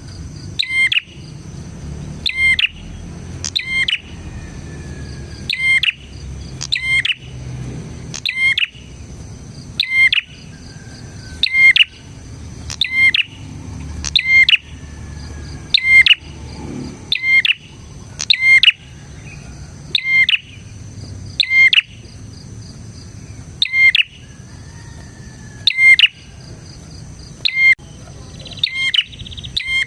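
Prinia (prenjak) calling: short, sharp, loud chirping calls repeated about once every second or so, over a steady high insect-like buzz.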